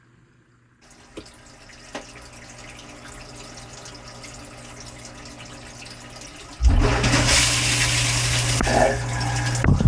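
Dishwasher running, heard from inside the tub. About a second in, water starts hissing into the tub with a couple of clicks and slowly grows louder. Near the end the wash pump comes on suddenly with a steady low hum, and water sprays hard around the inside.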